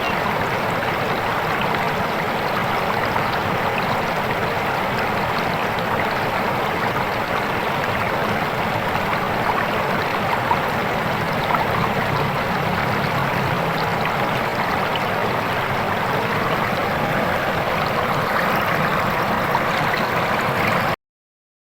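Swift, clear river water flowing in a steady, dense rush. The sound cuts off suddenly near the end.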